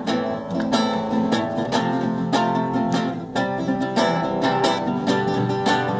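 Instrumental close of a sertanejo song: strummed acoustic guitar over a steady beat, with no voice.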